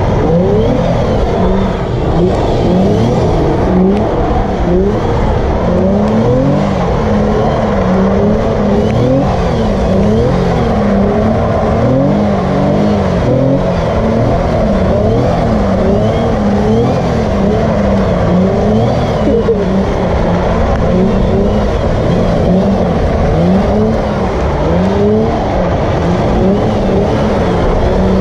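Infiniti G35's 3.5-litre V6 revving up and down over and over, about once a second, as the car spins donuts on wet pavement.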